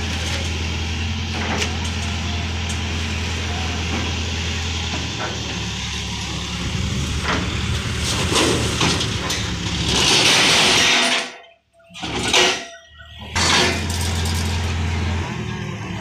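Mahindra Yuvo 575 DI tractor's four-cylinder diesel engine idling steadily. About ten seconds in there is a loud hiss, then the sound cuts out briefly twice before the idle returns.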